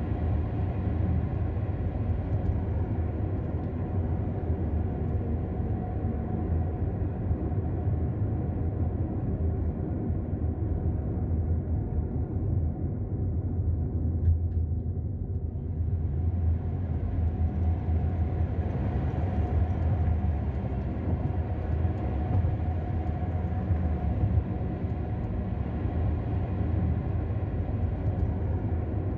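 Car engine and road noise heard from inside the moving car: a steady low hum. The higher hiss fades about twelve seconds in and comes back a few seconds later.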